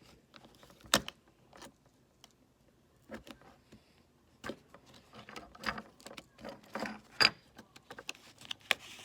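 Irregular sharp clicks and light metallic rattling from a metal marshmallow-and-hot-dog roasting fork being handled and worked free of its stapled packaging. One sharp click comes about a second in, and a quicker run of clicks and rattles comes in the second half.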